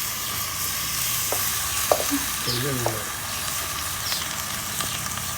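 Food frying and sizzling in hot oil in a pan, a steady hiss with a few sharp clicks of a utensil against the pan.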